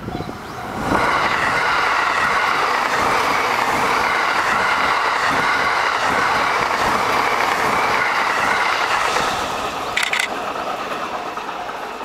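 JR East E531-series electric multiple unit passing close by, its running noise coming up loud about a second in, holding steady, then easing off near the end as the train moves away. A short sharp burst of hissing noise sounds about ten seconds in.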